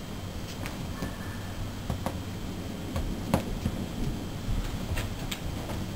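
A cat's paws knocking and scrabbling on a sofa as it pounces and leaps, heard as irregular soft knocks and clicks with the loudest about three seconds in, over a low steady hum.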